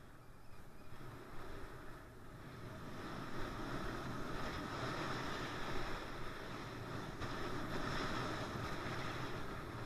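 Wind rushing over the microphone and skis sliding on snow during a downhill ski run, growing louder about three seconds in.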